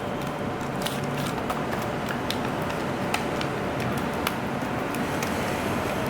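Scattered light clicks and crackles of a magnetic charging cable's packaging being handled and opened, over a steady background hum.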